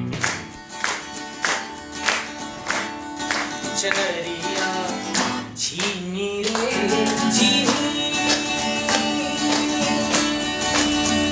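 Acoustic guitar strummed in a steady rhythm, about two strums a second, with a man's voice singing a wavering, bending melody over it from about the middle on.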